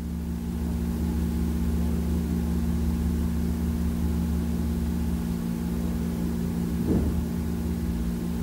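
Engine idling steadily, a constant low hum.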